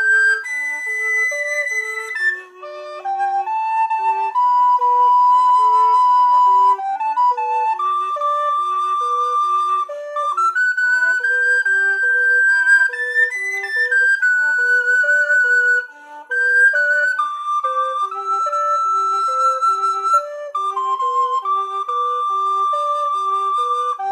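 Two recorders playing a duet: a high part holding long melody notes over a lower part of quick, evenly repeated broken-chord notes. The music thins briefly twice, at phrase breaks.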